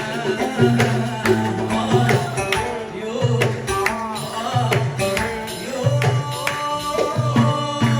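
Yemeni song music: a melody over a steady hand-percussion beat.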